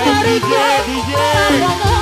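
Live jaipong music played loud: a wavering, ornamented melody line that glides between notes over short drum strokes.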